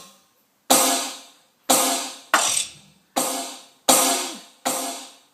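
Roland TD-9KX2 electronic drum kit played by a child: about six single, unevenly spaced hits, each with a bright, cymbal-like ring that fades out before the next.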